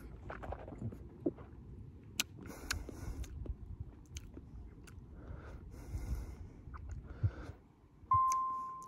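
Close mouth sounds of someone tasting beer: sips, lip smacks and small clicks, with two short breathy hisses. Near the end a single clear ringing tone starts sharply and fades over about a second and a half.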